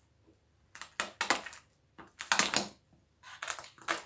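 Scissors cutting through packing tape that holds two cardboard boxes together, with the cardboard scraping: three rasping bursts about a second apart.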